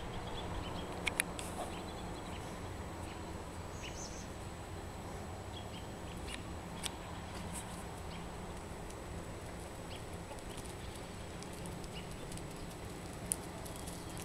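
Chickens clucking faintly as a flock approaches, over a steady low background noise, with a few sharp clicks.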